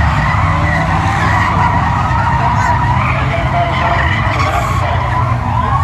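A pack of stock cars racing past with engines running loud and steady, and tires squealing.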